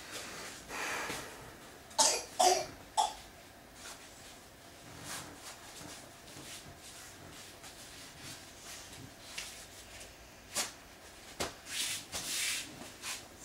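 Someone coughs three times in quick succession about two seconds in, followed later by softer rustling noises.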